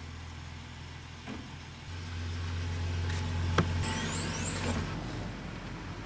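Ford Transit-based motorhome's engine idling: a steady low hum that steps up louder about two seconds in, with a sharp click a little after the middle, then eases back about five seconds in.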